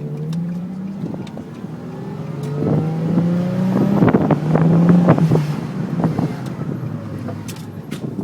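Nissan 350Z's V6 engine running as the car is driven, its note climbing in gentle glides and growing louder toward the middle before easing off. A few sharp knocks come about four to five seconds in.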